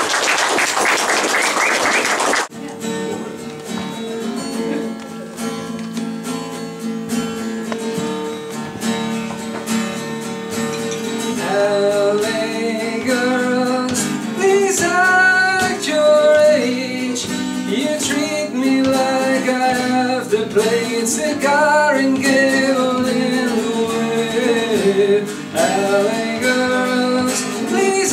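Applause for about two and a half seconds. Then a man plays chords on an acoustic guitar, and from about eleven seconds in he sings along with it.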